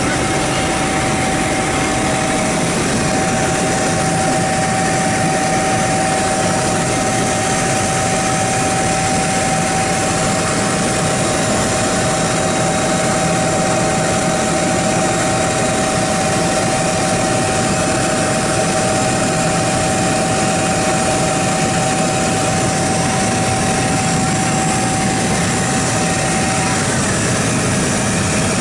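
Tour helicopter in steady cruise flight, heard from inside the cabin: the engine and rotors running with an even, loud rush of noise and a steady whine, the higher whine dropping out near the end.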